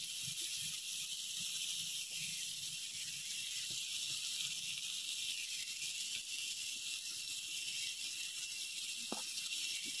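Shrimp, squid and raw beef slices sizzling steadily on a hot griddle pan as more beef is laid on with metal tongs, with a faint tap near the end.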